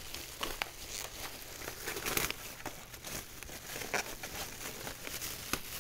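Plastic bag sheeting crinkling and rustling as it is handled, with scattered sharp little crackles.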